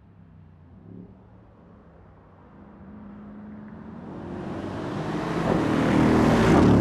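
Mercedes-AMG E63 twin-turbo V8 engines at speed, growing steadily louder as the cars approach, peaking as one passes close just before the end.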